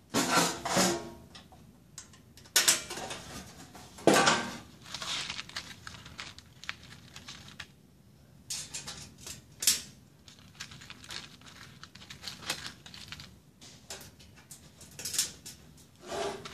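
Small metal hardware (bolt, washers and nut) clinking and rattling against the thin sheet-steel grill body while a hinge is bolted on by hand: a string of separate sharp clicks and clatters with quiet gaps between them.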